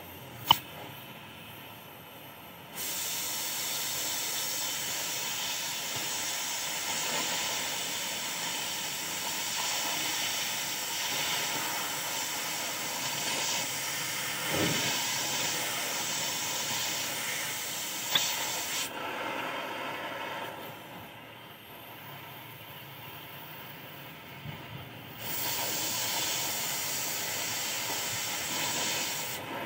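LPG-oxygen cutting torch hissing. A much louder, sharper jet of hiss comes on about three seconds in, drops back to a softer hiss for about six seconds, then comes on again until just before the end, the pattern of the cutting-oxygen lever being pressed and released over the preheat flame. A single sharp crack sounds just after the start.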